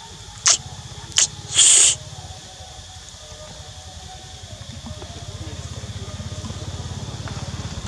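Three short hissing bursts in the first two seconds, the last the longest and loudest, over a steady low rumble.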